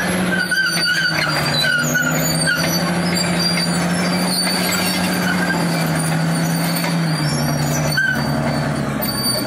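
Caterpillar D6 crawler bulldozer working under load, its diesel engine running steadily as it pushes its blade through hard sandstone, the engine note dropping a little about seven seconds in. Short high metallic squeals come in the first couple of seconds and again near the end.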